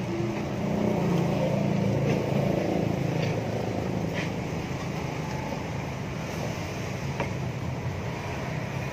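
An engine running close by: a steady low hum, strongest over the first few seconds and then easing off.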